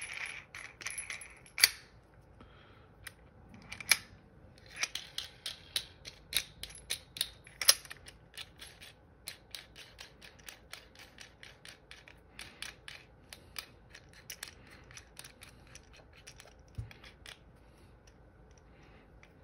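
Metal sight pusher tool being handled and adjusted: a run of small clicks and light metal knocks from its knobs, screws and pusher block, coming several a second from about five seconds in, with two sharper knocks near two and eight seconds.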